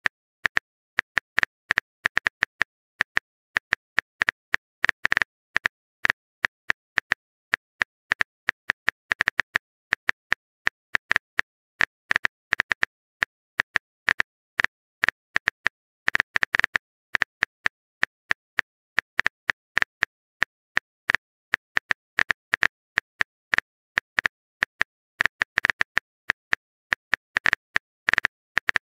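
Phone keyboard tap clicks from a texting-story app as a message is typed out, one crisp click per key, in irregular quick runs with brief pauses between them.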